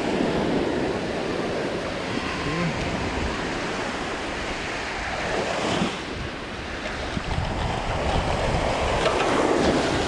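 Small surf breaking and washing up the sand at the shoreline, swelling a little before halfway and again near the end, with wind buffeting the microphone.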